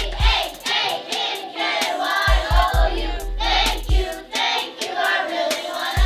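A class of young children singing a thank-you song together in chorus, with several low thumps and some sharp claps among the singing.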